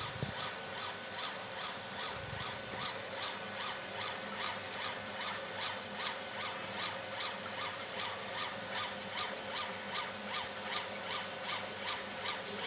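Homebuilt CO2 laser engraver raster-scanning a photo: the laser head's stepper-driven carriage sweeping rapidly back and forth, about four passes a second, in a steady rhythm.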